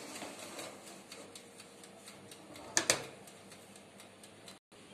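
A metal baking tray slides onto the rack of a Singer MaxiGrill 1000 oven-toaster-grill, and about three seconds in the oven's glass door clacks shut with two sharp knocks. Light clicking and ticking from the oven's mechanical controls runs underneath.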